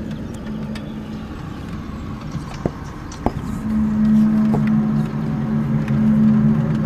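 Low, steady droning hum made of a few deep tones, weaker at first and swelling louder about three and a half seconds in, with two sharp clicks near the middle. It is an unexplained recurring 'strange sound' that comes back every ten minutes to half an hour.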